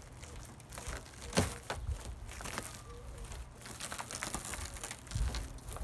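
Crinkling and crunching of a shattered, tape-covered car quarter window as it is pressed and worked loose, the broken glass crackling under the tape in irregular sharp clicks. There is a louder crack about a second and a half in and a low thump near the end.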